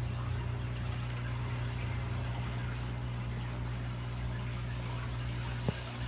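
Aquarium water bubbling and trickling from its aeration, as a steady hiss over a low steady hum. A single sharp click sounds near the end.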